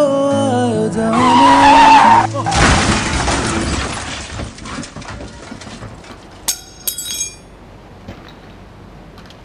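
Sung music breaks off under a loud, high-pitched sliding cry, then a crash of noise that fades over a couple of seconds. About six and a half seconds in, a metal fork strikes pavement twice, two quick ringing clinks.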